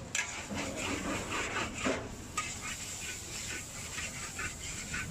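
Metal wok spatula scraping and tossing fried noodles around a wok in quick, repeated strokes.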